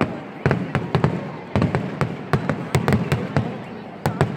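Fireworks display: a rapid, irregular run of sharp bangs from shells bursting, about three to four a second.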